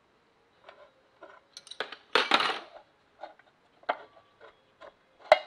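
Wrench and clutch bolts clinking and rattling against the metal clutch assembly of a BMW R90S airhead engine as it is unbolted. A short burst of metal clatter comes about two seconds in, and one sharp clink near the end.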